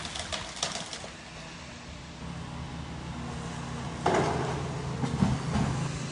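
Excavator tearing into an old timber-framed mill building. Wood cracks and snaps in the first second, then the engine hums steadily barely above idle, and a crash of falling debris comes about four seconds in.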